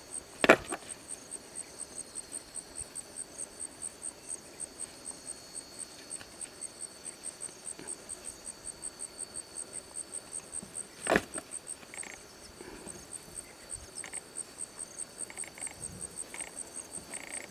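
Insects chirping steadily in a high, even pulse about four times a second over a steady high whine. Two sharp knocks cut through, one about half a second in, the loudest sound, and another about eleven seconds in.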